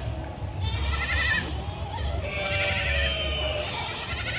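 Young goat kid bleating twice, quavering calls about a second in and again near three seconds, over a steady low rumble.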